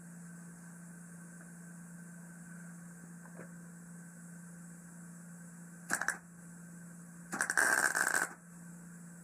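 Electric arc welding on steel: two tack welds, a short crackle about six seconds in, then a louder crackle lasting about a second near the end. A steady low hum runs underneath.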